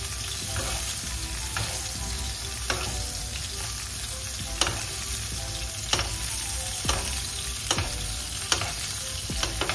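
Duck breasts sizzling skin-side down in a frying pan, their rendered fat spooned back over the meat to baste it. Short clicks of the utensil against the pan come about once a second over the steady sizzle.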